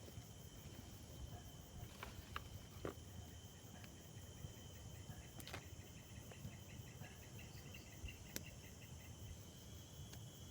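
Insects chirring steadily at a high pitch, with a faster pulsing chirr in the second half and a few faint clicks.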